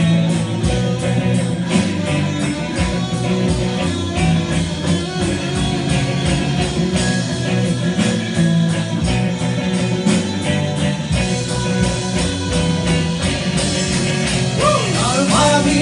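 Live band playing rock-style music: hollow-body electric guitar strummed over a steady drum beat, with other instruments filling in. A singing voice comes in near the end.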